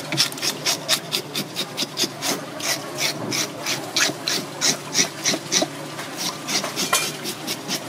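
Fish scaler scraping the scales off a black saddle grouper in quick, repeated strokes, about three a second.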